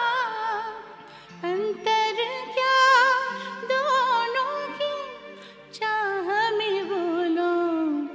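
A man singing a slow, ornamented Hindi film-song line in a high, female-sounding voice, with vibrato, in a few phrases, over a faint held accompaniment.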